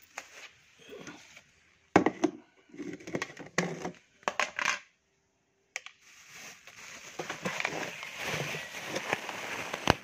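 Thin plastic bag of bird feed crinkling and crackling as it is handled, with sharp irregular crunches, then a denser, steadier rustle in the second half.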